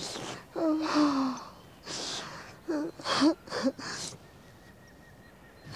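A woman sobbing: short wailing moans broken by gasping, wheezy breaths, in several bursts.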